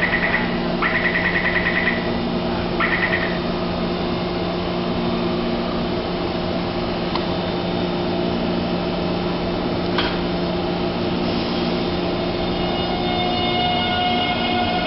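Taipei Metro C321 train: the door-closing warning beeps in three short bursts, then the stopped train's equipment hums steadily, with a couple of sharp clicks as the doors shut. Near the end the traction motors start a rising whine as the train begins to pull away.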